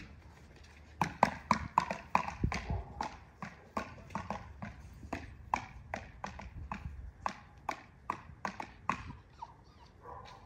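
A run of sharp, short clicks, about three a second, loudest at the start and ending shortly before the end: a person clicking to call a dog.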